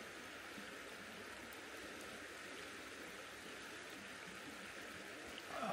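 Steady rushing hiss of a nearby mountain stream flowing. Near the end there is a short sip from a cup.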